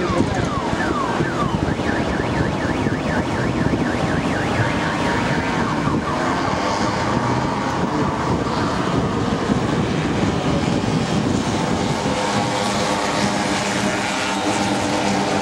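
70cc two-stroke racing scooter engines running at high revs, a high whine whose pitch rises and falls as the bikes accelerate and shift.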